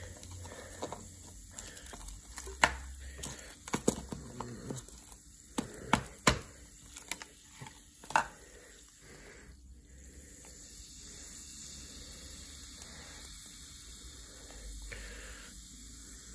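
Cotton candy and a glass being handled: a run of sharp clicks and taps over several seconds, then a steady soft hiss.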